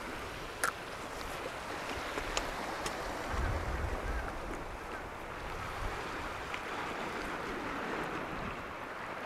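Sea surf washing against the rocks, with wind gusting on the microphone. A single sharp click comes just under a second in, followed later by a few faint ticks.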